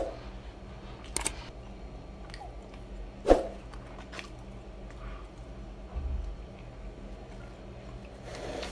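Close-miked mouth sounds of a man chewing a mouthful of food with his mouth closed: quiet wet chewing with a few sharp smacks or clicks, the loudest at the very start and about three seconds in. A steady low hum runs underneath.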